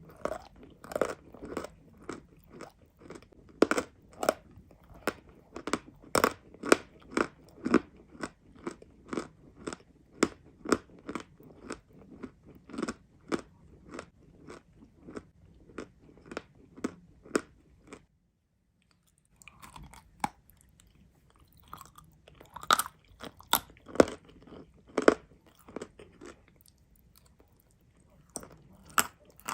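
Someone chewing crunchy edible clay, a steady run of crisp crunches about two to three a second. After a brief total silence about two-thirds of the way in, the crunches come back sparser, with a few louder bites.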